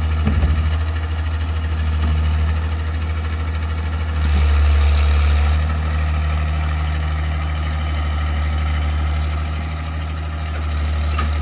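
Diesel engine of a Tata Hitachi excavator running steadily with a deep hum. It grows louder for a second or two about four seconds in.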